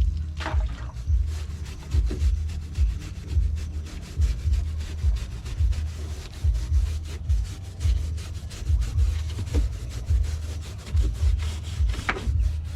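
Rhythmic scraping or rubbing strokes, about one and a half a second, each with a dull low thump.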